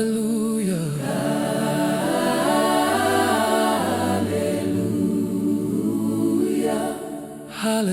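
A cappella voices singing slow, sustained harmonies in a hymn-like passage, with a short break near the end before the next phrase begins.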